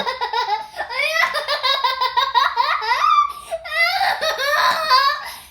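A young child laughing: high-pitched giggles in quick, repeated bursts, pausing briefly a little past halfway and trailing off at the end.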